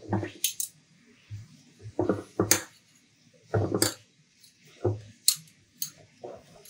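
Serving utensils clinking and knocking against a metal serving tray while food is arranged on it: a series of sharp light clinks and duller knocks, irregularly spaced.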